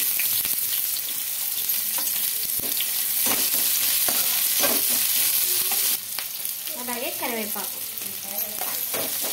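Chopped onions and tempering spices sizzling in hot oil in a small aluminium pan, with a spoon scraping as it stirs them. The sizzle eases a little about six seconds in.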